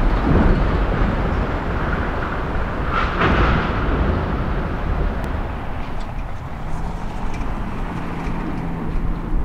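Steady rumble of road traffic, with a brief louder swell about three seconds in.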